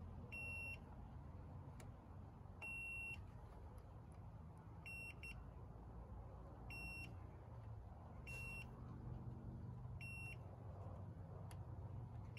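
Digital multimeter's continuity beeper giving short, steady high beeps, six in all about every one and a half to two seconds, one of them broken into two, as the probes touch the contacts of car fuses in a fuse box one after another. Each beep signals continuity: the fuse is good.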